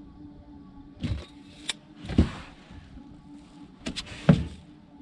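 Handling noises on a boat as a caught fish is measured with a measuring tape: two clusters of knocks, clicks and scrapes, one about a second in and one near four seconds in, each ending in a thump, over a faint steady hum.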